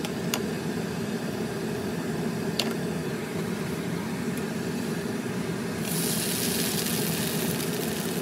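Dosa cooking in a non-stick frying pan on a hob. A steady low hum sits under a sizzling hiss that grows louder about six seconds in, with two light clicks in the first few seconds.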